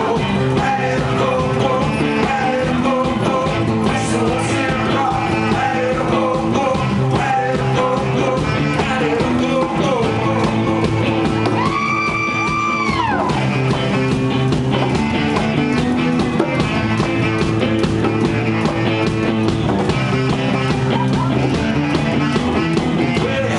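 Live rock band playing, with singing and electric instruments. About halfway through, one long held note slides down as it ends.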